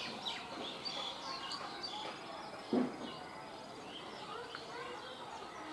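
Birds chirping over open-air railway station background noise, with one brief low thump about three seconds in.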